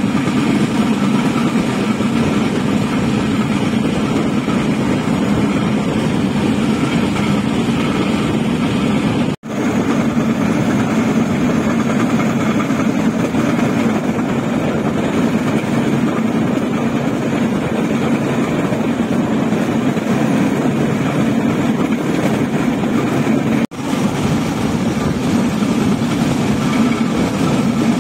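Railway motor trolley running along the track at speed: a steady drone of engine and wheels on the rails. The sound breaks off for a moment about nine seconds in and again near twenty-four seconds.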